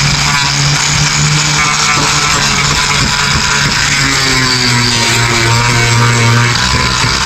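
A motor running with a steady hum, with music playing over it.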